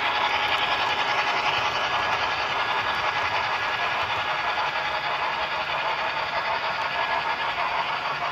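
HO scale model trains running past on the track: a steady whir of small electric motors and the clatter of wheels on rail.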